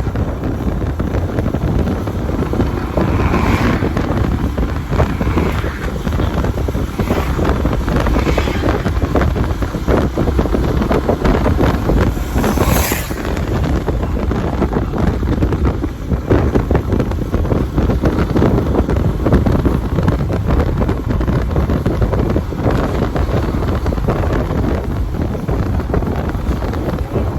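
Wind buffeting the microphone over a steady low rumble, with a few brief brighter noises.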